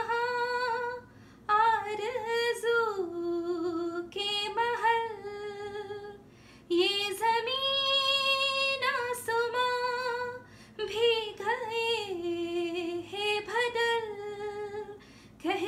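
A woman singing a slow melody in phrases of a few seconds, her pitch gliding and bending between held notes, with short breaks between phrases; no instruments stand out.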